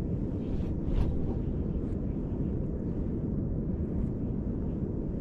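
Steady low rumble of wind buffeting the microphone, with a few faint ticks, the clearest about a second in.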